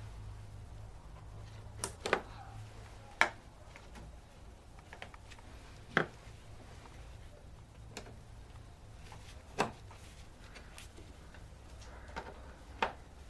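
Hands working on a car's air filter housing: six or so scattered sharp clicks and knocks, over a low steady hum.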